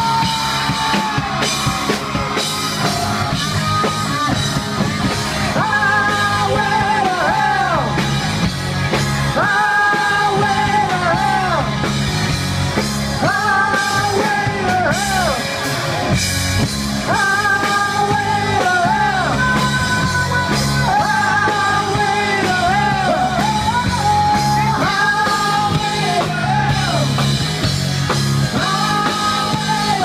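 Live rock band playing loud on drum kit, bass and electric guitar, with a lead vocal sung in long held phrases that come about every three to four seconds.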